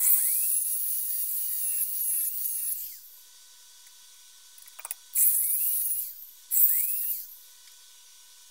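Small high-speed rotary tool run in three bursts, one of about three seconds and then two short ones near the middle, its whine rising as it spins up each time while it cuts slowly through rusted sheet steel.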